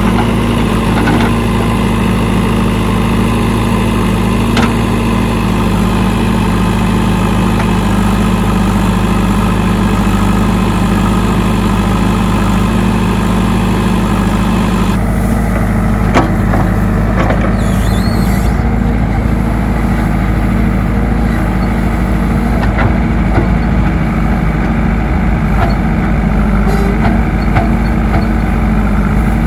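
Diesel engine of a JCB 3DX Eco backhoe loader running steadily while its backhoe arm digs a trench, with a few faint knocks.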